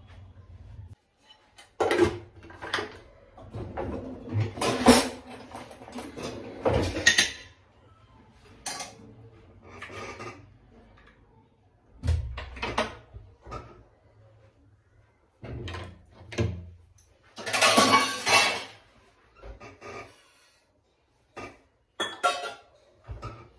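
Metal pots, lids and utensils clattering and scraping in irregular bursts as they are handled on a stovetop, with a longer, louder scrape about three quarters of the way through.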